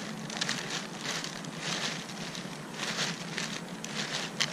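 Rustling and crackling from a plastic shopping bag and footsteps while walking, with soft noises coming about two to three a second over a faint steady hum.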